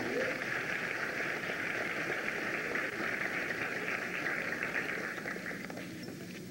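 Audience applauding after a song, a dense patter of clapping that fades out near the end.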